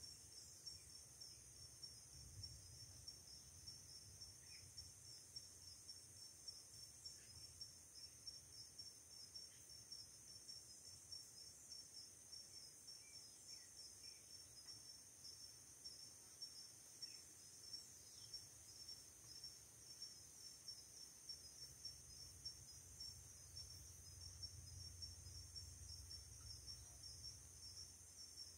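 Faint, steady chirring of crickets and other insects: a fast, even pulsing trill under a continuous high-pitched hiss. A faint low rumble sits underneath and grows slightly louder near the end.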